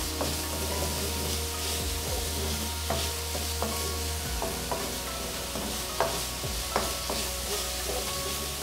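Boneless chicken cubes sizzling in hot oil in a wok while a wooden spatula stirs them, with a steady hiss and short scrapes and taps of the spatula against the pan every second or so.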